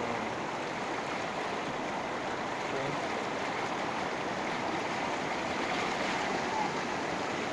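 Floodwater rushing steadily in a continuous, even hiss.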